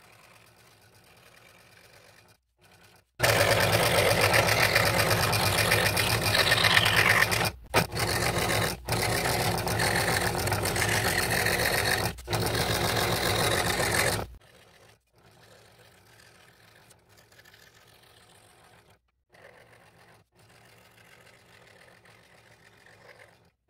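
Scroll saw running with a No. 3 blade at slowed speed, cutting a thin 3/16-inch sheet of balsa: a steady, fast reciprocating clatter. It starts abruptly about three seconds in, dips out briefly twice, and stops abruptly around fourteen seconds; before and after it is much fainter.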